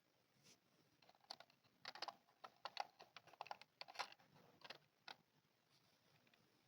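Small hard plastic toy pieces being handled: a faint, quick, irregular run of light clicks and taps that stops about five seconds in.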